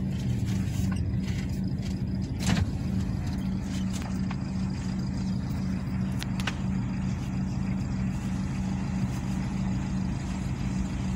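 Car cabin noise while driving: a steady engine drone with road rumble, heard from inside the car. A couple of brief light knocks come through, the clearest about two and a half seconds in.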